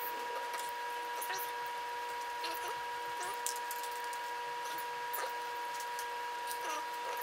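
Scattered light clicks and taps of small brass lock pins and a lock-cylinder shell being handled and set down. A steady high tone hums throughout underneath.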